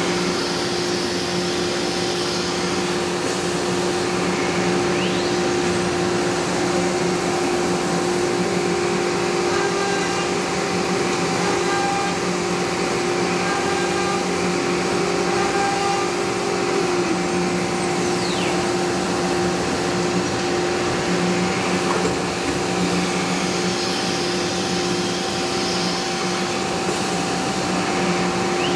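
Thermwood CNC router running: a steady machine hum with several held tones, and a couple of brief whines as the head moves.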